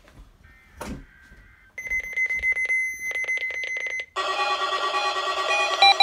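Several NOAA weather alert radios going off for the required weekly test: a fast electronic beeping over a steady high tone, then about four seconds in a louder jumble of alert tones and chimes sounding together.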